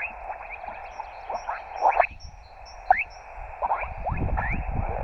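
Receiver audio from a LAB599 TX-500 transceiver on SSB: steady band hiss cut off above a narrow voice passband, with short chirping whistles that slide up and down in pitch from off-tune signals and interference. Faint, rapid peeping sounds higher above it.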